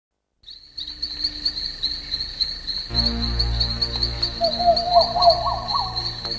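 Crickets chirping in a steady fast pulse, joined about three seconds in by an electronic music intro with a deep bass drone and, soon after, a pulsing synth melody.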